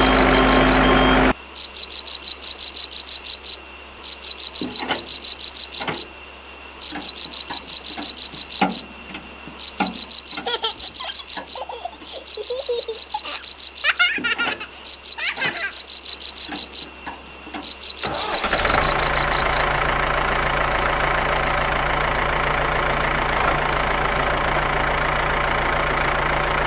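A cricket trilling, high-pitched, in repeated bursts of about a second and a half with short pauses, over faint scattered clicks. A little over two-thirds of the way through the trilling stops and a small engine's steady running hum takes over.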